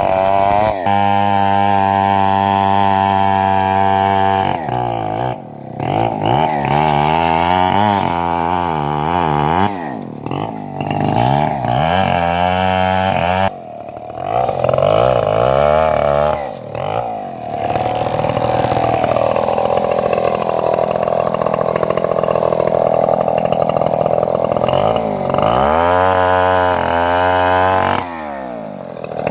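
Homemade bandsaw mill sawing trembesi (rain tree) wood, running loud with its pitch repeatedly dropping and recovering as the blade takes the load. A rougher, noisier stretch of cutting comes in the middle.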